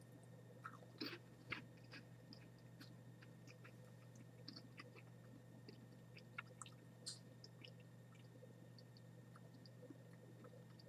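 Faint, irregular crunchy clicks of a dried sago worm (boiled-and-dehydrated red palm weevil larva) being chewed, over a low steady hum.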